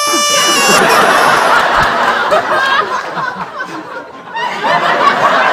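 Many people laughing together, like a laugh track. The laughter dips about four seconds in and then swells again.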